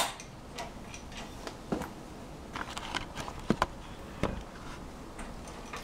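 Scattered light clicks and knocks of hand work with tools and metal parts, with one duller thump about four seconds in.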